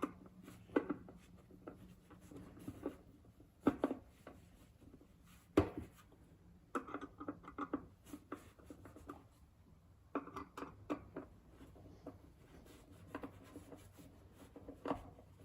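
Hand-tightening drawer-handle bolts with a manual screwdriver: scattered knocks of the wooden drawer being handled, with short runs of quick clicks and scraping as the screwdriver turns.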